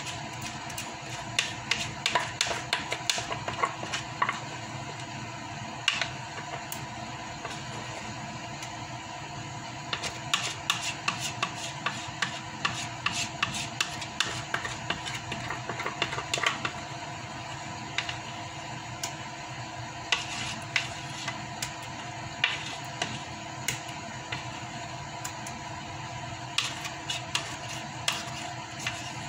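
A utensil scraping and tapping against a mixing bowl in bursts of quick clicks as thick marshmallow-fluff filling is scraped out into a pie crust, over a steady hum.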